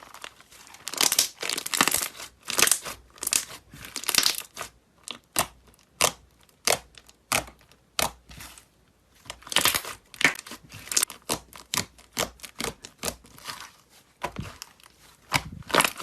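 Slime being pressed and squeezed by hand, giving a run of crackling, crunching sounds. In the middle these thin out to single sharp snaps about every half second before the dense crackling resumes.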